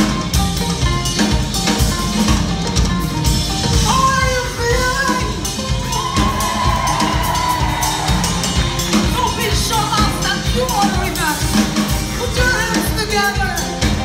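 Live band music from Mali: drum kit and electric bass playing a steady groove, with a woman's voice singing from about four seconds in.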